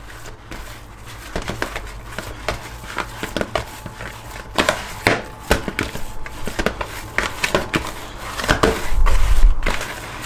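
75% hydration pizza dough being kneaded briefly by hand, with irregular wet slaps, squelches and knocks. A heavy low thump comes near the end and is the loudest sound.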